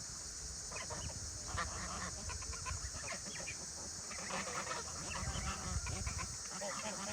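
Farmyard poultry calling: a run of many short calls, thickest in the second half.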